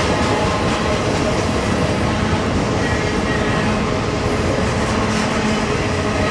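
Intermodal freight cars carrying trailers and containers rolling past close by at speed: a loud, steady rumble of steel wheels on the rails.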